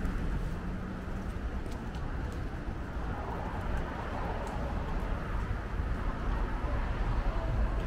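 City street ambience: a steady low rumble of traffic with faint voices and scattered light ticks.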